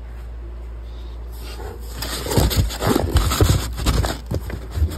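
Cardboard box packaging scraping and rustling, with some bumps, as the kit's parts are handled and pulled from the box, starting about a second and a half in.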